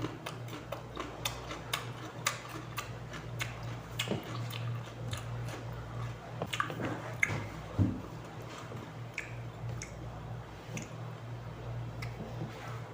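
Crisp crunching and chewing of raw cucumber close to the microphone: irregular sharp clicks and wet squishes, with a steady low electrical hum underneath.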